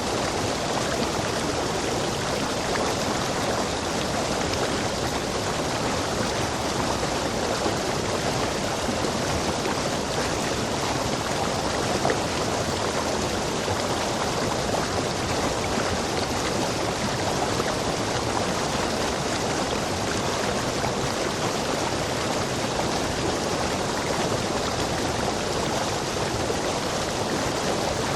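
Rainforest stream rushing steadily over rocks.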